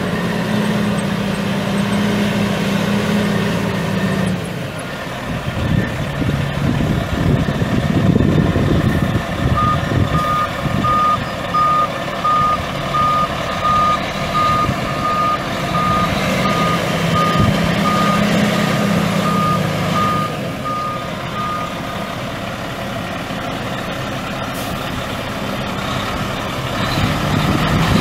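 The Caterpillar C12 inline-six turbo diesel of a Freightliner FLD120 semi truck running, with the truck's backup alarm beeping in a steady rhythm, about one beep a second, from about ten seconds in until about six seconds before the end: the truck is reversing.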